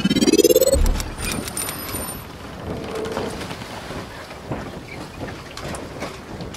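Channel intro sound effect: a rising whoosh that ends in a low boom about a second in, a brief high shimmering chime, then a noisy rumbling wash that slowly fades.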